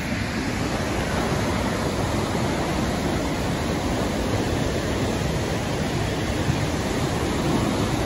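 Waterfall: a steady rush of falling water, swelling a little in the first second.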